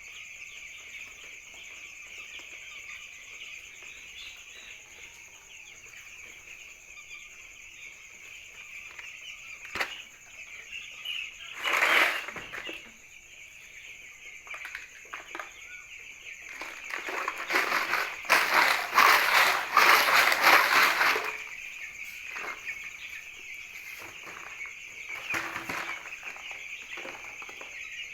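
A flock of eight-day-old poultry chicks peeping steadily together. A short loud burst of rustling comes about twelve seconds in, and a longer, louder stretch of it in the second half.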